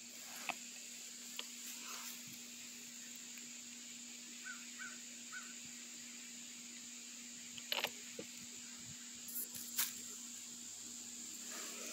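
Faint scattered clicks and taps of hands handling the camera and working around the spark plug, over a steady low hum. Three short high notes sound about four and a half seconds in.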